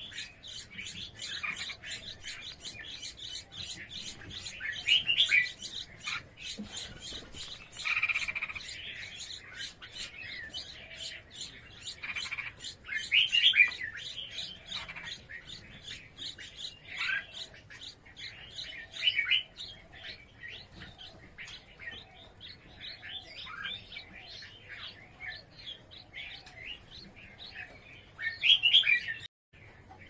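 Red-whiskered bulbuls chirping at the nest while the parents feed their nestlings: a steady run of rapid, high chirps, broken every few seconds by louder bursts of calls.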